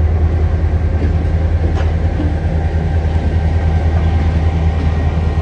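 TasRail diesel-electric locomotives running light engine, coupled with no wagons, passing at close range, the TR-class unit nearest. Their diesel engines run with a steady low drone that pulses evenly in loudness.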